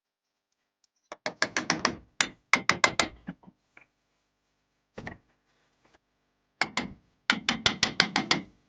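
Rapid runs of sharp metallic clicks, about ten a second, from hand-tool work on a differential: a long run, a single click, then another long run.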